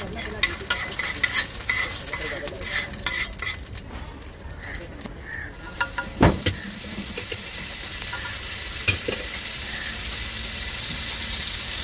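Metal spatula scraping and tapping on a large flat iron griddle, then a single loud clank about six seconds in as a ladle of beaten egg goes into hot oil. After that the egg fries in the oil with a steady sizzle that grows louder.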